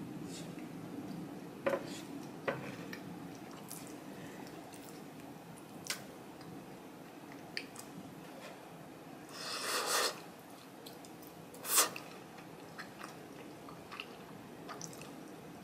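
Close-miked chewing of a mouthful of rice, with soft wet mouth clicks. There is a longer noisy sound about ten seconds in and a single sharp click about two seconds later.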